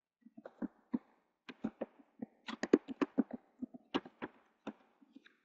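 Computer keyboard being typed on: a quick, uneven run of key clicks, starting just after the beginning and going on nearly to the end, as a command is entered at a command prompt.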